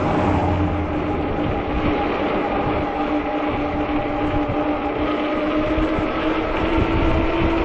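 Ecotric 48V fat-tire e-bike riding on pavement: a steady whine from the rear hub motor over the hum of the fat tyres, rising slightly in pitch near the end. Gusty wind rumbles on the microphone.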